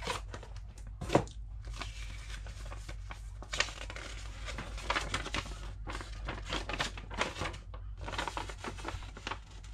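Crinkling and rustling of a folded paper instruction leaflet being pulled out of a small cardboard box and unfolded by hand, with a sharp snap of paper or card about a second in.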